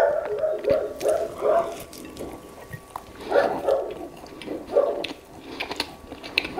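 Dog barking repeatedly: a quick run of barks at the start, another cluster about halfway through, and single barks near the end.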